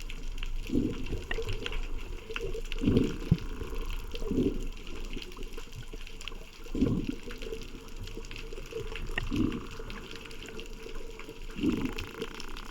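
Underwater sound of a scuba diver's regulator: exhaled bubbles gurgling in short bursts every two seconds or so, over the steady low rush of the water.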